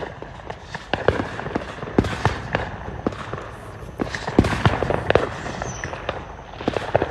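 Fireworks going off: a rapid, irregular string of sharp bangs and pops over constant crackling.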